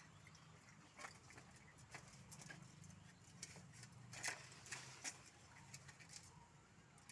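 Faint, irregular taps and clicks, about half a dozen spread over a few seconds, the clearest a little past the middle, over a low steady hum.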